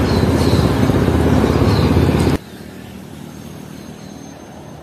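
Loud, steady road traffic noise with a low rumble, which cuts off abruptly a little over two seconds in, leaving a much quieter background hum.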